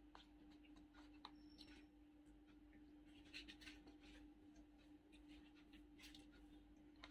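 Near silence: faint scattered clicks and rustles of eating and food handling, the spoon in the paper biryani bucket and paper wrapper crinkling as popcorn chicken is picked up, over a steady low hum.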